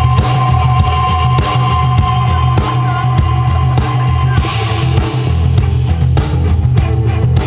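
Live band playing loud rock music through a PA: a steady drum beat with heavy bass and sustained guitar or synth tones.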